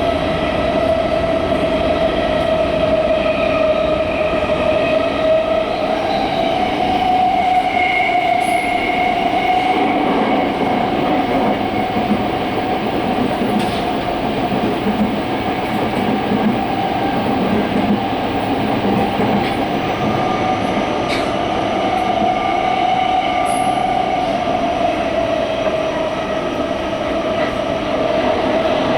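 Toyo Rapid Railway 2000 series train running at speed, heard from inside the car: a steady rumble of wheels on rail under a steady whine that rises slightly in pitch about six seconds in and falls back near the end.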